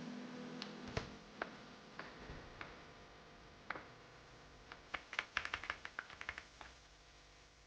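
Faint keystrokes on a Kodessa KDA61 60% mechanical keyboard with Outemu brown switches: a few scattered key clicks, then a quick flurry of about a dozen keystrokes past the middle.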